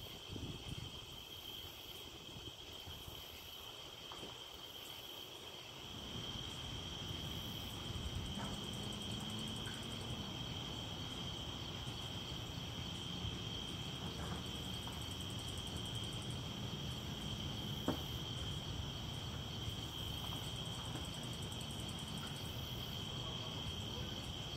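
Night insects chirring in a steady high drone, with a low steady rumble coming in underneath about a quarter of the way in.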